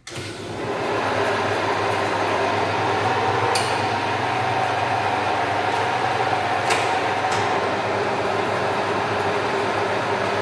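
Electric motor of a tractor differential demonstration rig starting up and then running steadily, turning the gearbox, propeller shaft, differential gears and half shafts. Two sharp clicks sound partway through.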